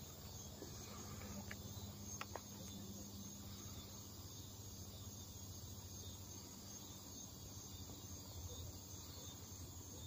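Steady, high-pitched outdoor insect chorus of crickets or similar trilling insects, running on without a break. Under it is a faint low rumble, with a few faint clicks about two seconds in.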